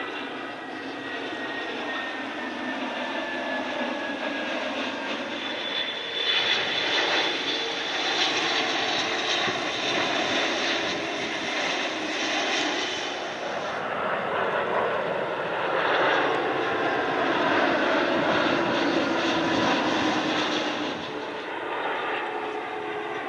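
Twin-engine Airbus jetliners on landing approach, their engines a steady jet rumble and whine with tones that slowly fall in pitch as each passes. The sound changes abruptly three times as one aircraft gives way to the next.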